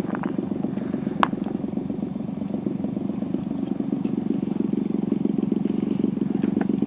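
Engine of a large radio-controlled model plane running steadily as the plane rolls along the runway, a rapid buzzing drone that grows a little louder in the second half. A single sharp click about a second in.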